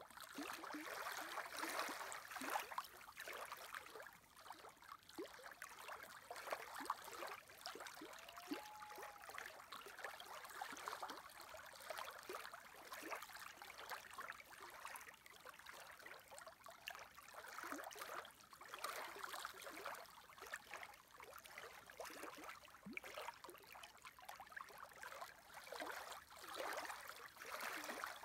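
Small wind-driven lake waves lapping and splashing close by in irregular little slaps, coming and going in swells.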